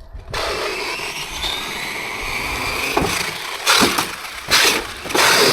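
Traxxas X-Maxx 8S RC truck's electric motor whining with drivetrain noise under throttle. Near the end come three loud bursts of gear noise: the pinion skipping on the spur gear because the mesh has come away.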